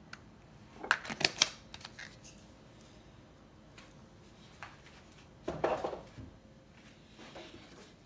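Sharp clicks and clacks of a coffee jar's metal screw-cap lid and jar being handled: a quick run of clicks about a second in, and another cluster of knocks about five and a half seconds in.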